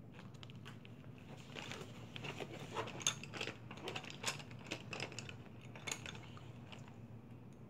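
Plastic markers and pens clacking and rattling against each other as a hand rummages through a rubber-banded bundle of them, a quick run of small clicks that thickens in the middle and thins out near the end.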